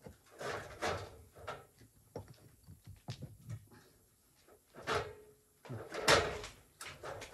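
Irregular scraping and knocking, as of old timber and rubble being handled during roof demolition work. The sounds come in short separate bursts, the loudest around five and six seconds in.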